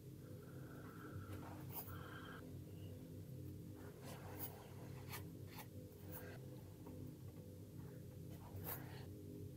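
Faint scratching and light ticks of metal tweezers picking at the painted plastic of a scale model aircraft. A handful of short scrapes and clicks fall mostly in the middle and latter seconds.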